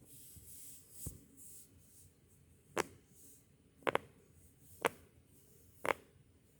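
Crab-shaped silicone pop-it fidget toy having its bubbles pressed: sharp pops about a second apart, one of them a quick double, after a dull knock about a second in.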